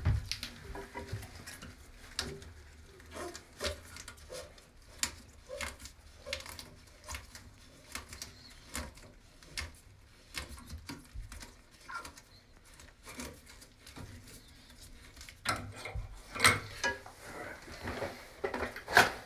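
Scattered light clicks and knocks of hands and parts being handled in and around a toilet tank, with a few louder knocks near the end.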